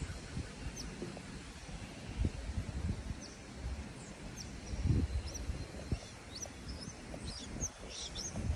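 Outdoor ambience with small birds giving scattered short, high chirps, over a low uneven rumble that swells briefly about two and five seconds in.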